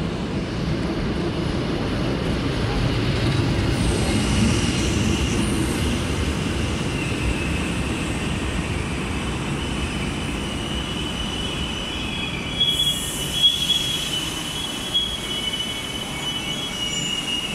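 Yellow RegioJet passenger coaches rolling slowly along the station track, a steady low rumble of wheels on rail. A high-pitched wheel squeal grows strong in the last third, with a few sharp clicks and knocks.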